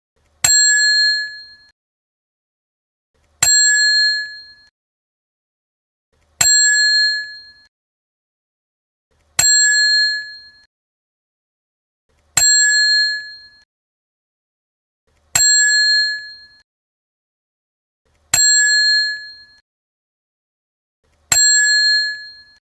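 Desk service bell struck once about every three seconds, eight times. Each strike gives a sharp ding that rings and fades out over about a second.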